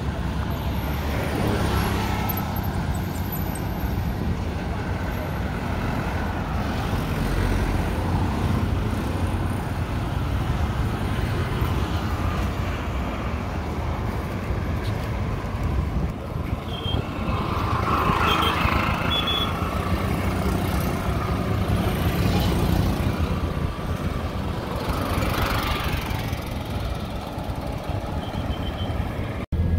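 Roadside motor traffic: a steady rumble of cars, trucks and auto-rickshaws, with several vehicles swelling up loud as they pass close by.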